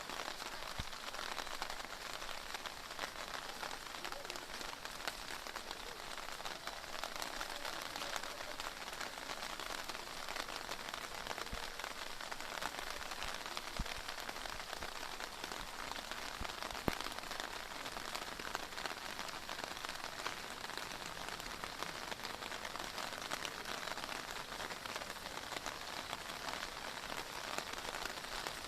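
Heavy downpour: dense, steady rain pattering on surfaces, with a couple of sharper drip clicks standing out about halfway through.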